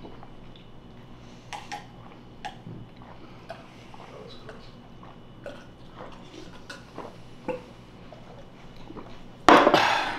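A man chugging a glass of milk: faint gulps and small scattered clicks and clinks, then a loud breathy gasp near the end as he finishes drinking.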